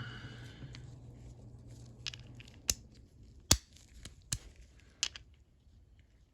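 A short rustle, then a series of separate sharp metallic clicks, roughly one every 0.7 s, as the disassembled mechanism of a Channellock ratchet is worked by hand to feel the ball detent's tension, which is light to medium.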